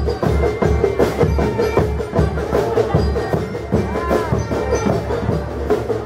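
Marching band playing: brass and sousaphone over a steady beat of bass drums and cymbals.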